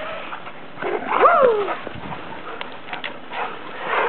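A husky gives one short whine that rises and then falls in pitch, about a second in.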